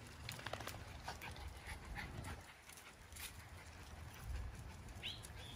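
Miniature Schnauzer puppies whimpering and squeaking in short, high cries, most of them in the first couple of seconds, with one more high squeak near the end.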